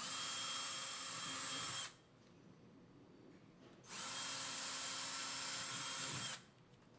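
A power drill boring pilot holes for wall anchors: two runs of about two seconds each, with a steady whine, stopping sharply between the holes.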